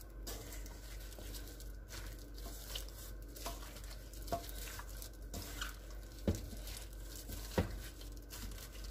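Gloved hands mixing raw chicken wings with seasoning in a stainless steel bowl: faint wet squishing and rustling with light clicks, and two sharper clicks in the second half.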